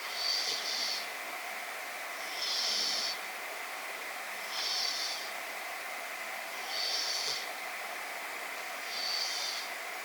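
Sleeping cat snoring, a soft hissy breath about every two seconds, five in all, over a steady background hiss.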